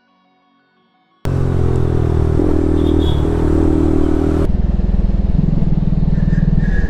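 Faint music for about a second, then a sudden cut to the loud exhaust note of a Bajaj Pulsar RS200's single-cylinder engine through an aftermarket Akrapovic full-system exhaust, running at fairly steady revs. The engine note changes abruptly twice.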